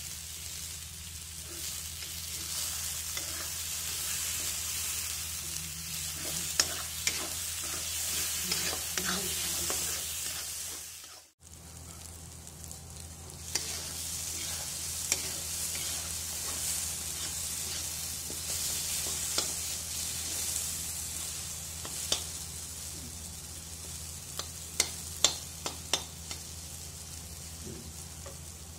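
Mustard, garlic, onion, tomato and green chilli paste sizzling steadily in hot oil in a wok as it is roasted, stirred with a metal spatula that scrapes and clicks against the pan. The sound cuts out for a moment about eleven seconds in.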